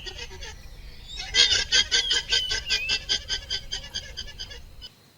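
Alpaca calling in a rapid series of short, high-pitched calls, about seven a second. The run breaks off briefly about half a second in, resumes about a second in, and stops suddenly near the end.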